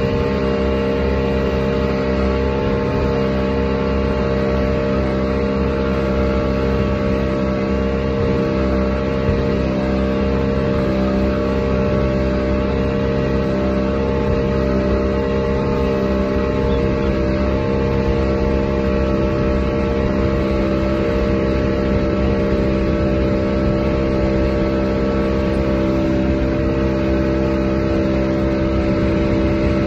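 Speedboat's outboard motor running steadily at speed while towing a banana boat, over the rush of the churning wake.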